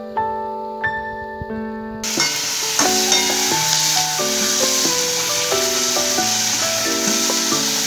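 Background keyboard music plays a steady tune; about two seconds in, a steady hiss of chopped onions and tomatoes sizzling in hot oil in a pan comes in suddenly under it.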